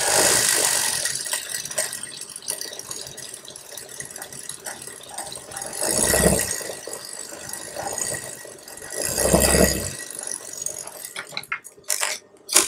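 Juki industrial sewing machine stitching a sleeve onto a blouse: it starts suddenly, runs with a steady rattle that swells louder twice, and breaks into a few clicks as it stops near the end.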